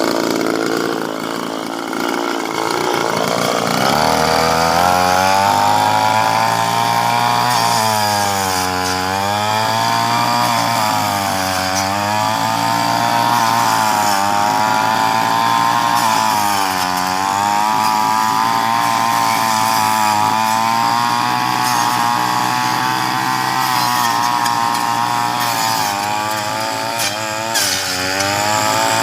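Chainsaw revving up about four seconds in and then running at high speed, its pitch dropping and recovering several times as it bogs down under load cutting through tree branches.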